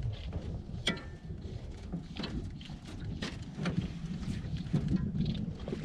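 Wind buffeting the microphone over water lapping against a drifting boat, with scattered small knocks and splashes, one sharp click about a second in.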